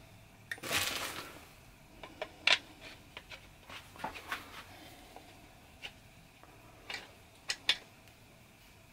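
Light clicks and taps from handling a steam-engine walking stick, a cane with a small oscillating steam engine in its head, with a brief rustle about a second in.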